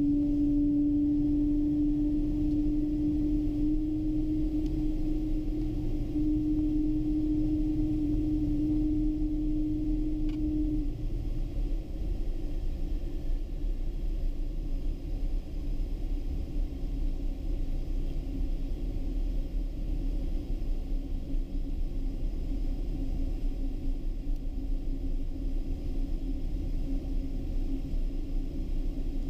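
Cabin noise of a Boeing 777-200 taxiing after landing: a steady low rumble with a droning engine hum that drops back about eleven seconds in and carries on more faintly.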